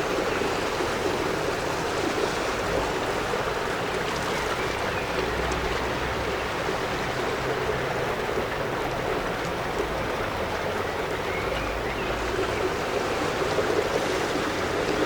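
Water rushing steadily through a water mill's race and wheel, an even, unbroken noise.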